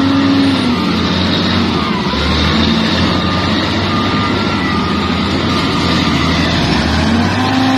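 Heavy diesel engine running under load, its revs dropping about a second in and rising again near the end, over a steady noisy rumble.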